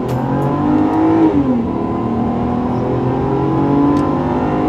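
Volvo XC60 T6's turbocharged 3.0-litre inline-six at full throttle, heard from inside the cabin, with the engine note rising under hard acceleration. About a second in, the six-speed automatic shifts up: the pitch drops sharply, then climbs again.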